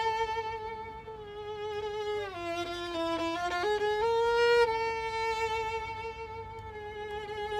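Solo violin playing a slow melody: a long held note, a short falling run of notes about two seconds in, then another long held note.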